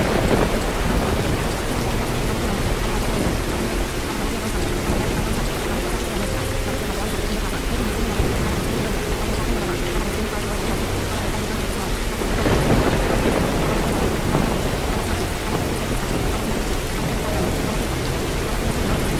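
Steady heavy rain with rolling thunder, the rumble swelling at the start and again about twelve seconds in.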